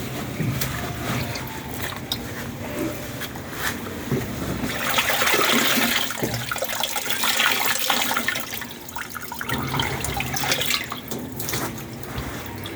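Water sloshing and splashing in a washing machine tub, loudest about halfway through.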